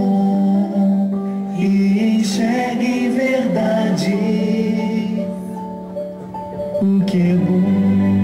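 Music playing, with held low notes under a melody; it dips quieter about five seconds in and swells back near the end.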